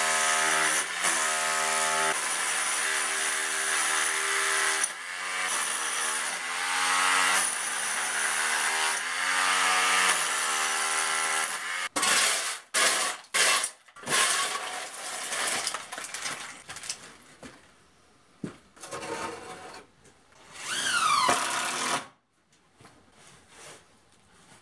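Corded electric power tool running hard against an old concrete footing, its motor pitch sagging and recovering as it bites in, over a harsh grinding rasp. About halfway through it stops, and a shovel scrapes and clatters through the broken concrete rubble.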